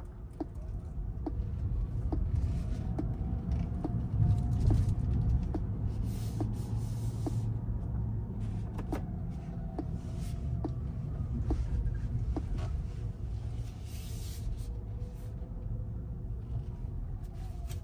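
Cabin sound of a Rivian R1T electric pickup on the move: a steady low rumble of road and tyre noise, with a faint whine from the electric drive that rises and falls with speed under one-pedal driving. Soft ticks repeat about once a second throughout.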